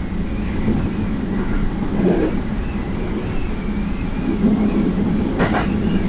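Passenger train running, heard from inside the car: a steady low rumble with a faint wavering high whine. A short hiss comes about five and a half seconds in.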